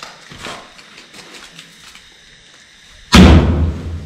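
A few faint taps and rustles, then about three seconds in a single sudden loud bang that dies away over about a second.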